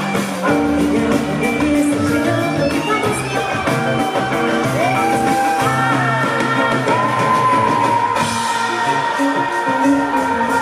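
Live samba band playing, with a woman singing long, gliding notes over accordion, drums and hand percussion.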